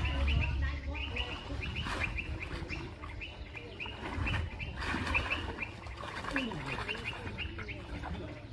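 Water splashing and sloshing as a bamboo plunge-basket fish trap is pushed down into a muddy pond and swung about by a person wading through it, with a few sharper splashes. Small birds chirp in quick repeated calls throughout.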